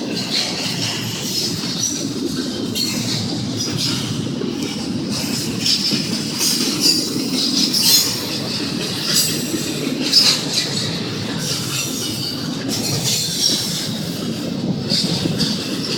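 Union Pacific intermodal freight train rolling past: a steady rumble of wheels on rail with intermittent wheel squeal and occasional sharp clanks, the loudest about 8 and 10 seconds in.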